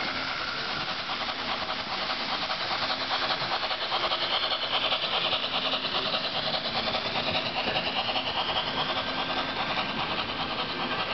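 An HO-scale Märklin model train, a Baden IVh steam locomotive hauling Rheingold coaches, rolls past on the layout track. It makes a steady rolling rattle with a fine rapid clicking, a little louder in the middle as the train goes by close.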